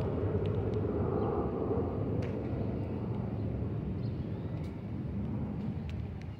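Jet airliner climbing out overhead after takeoff: a steady low jet-engine rumble that slowly fades as the aircraft moves away.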